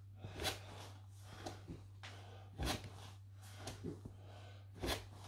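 A man's short, sharp breaths under exertion during reverse curls on a floor mat, the strongest roughly every two seconds with fainter ones between, over a steady low hum.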